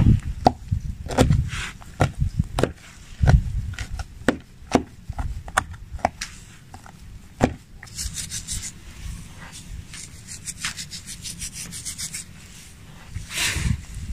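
Knife cutting a raw guinea fowl on a wooden cutting board, with sharp taps of the blade against the board. From about eight seconds in come coarse salt grains scattered and rubbed over the bird's skin, heard as a fine crackly patter, with one louder rubbing swish near the end.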